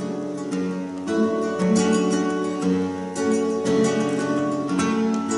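Two flamenco guitars playing an instrumental passage between sung lines, with sharply attacked chords and held notes.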